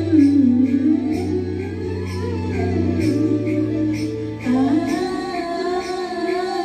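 A woman singing a slow melody into a handheld microphone over recorded backing music, with held bass notes and a regular light percussion tick.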